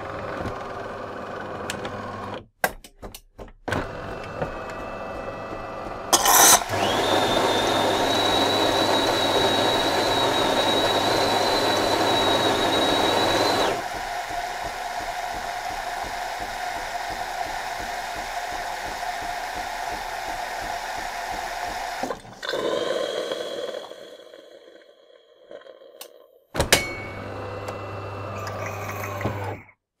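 De'Longhi Magnifica super-automatic coffee machine frothing milk for a cappuccino: steam hissing through the milk frother, with a steady high whistle over the hiss for about seven seconds after a sudden start, then a lower steady hiss while the hot milk pours, tailing off a little after twenty seconds. A short spell of machine hum comes back near the end.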